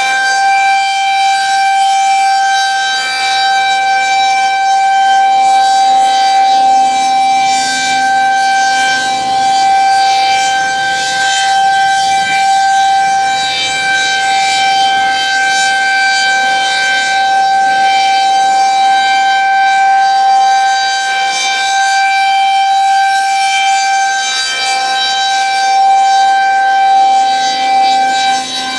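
Federal Signal 2001-SRNB electromechanical outdoor warning siren sounding a steady tone during a test. It holds one unchanging pitch with a rich stack of overtones, swelling and fading slightly in loudness as the rotating siren sweeps past.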